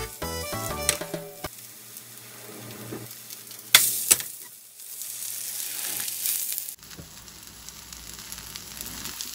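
Kimchi pancake batter sizzling as it fries in oil in a pan. About four seconds in there are two sharp clacks of the pan as the pancake is flipped.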